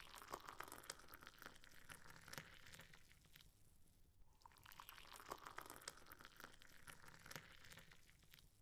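Hot oil sizzling and crackling around breaded chicken drumsticks being shallow-fried in a pan. It comes as a dense patter of fine pops over a hiss, in two swells with a short dip about four seconds in.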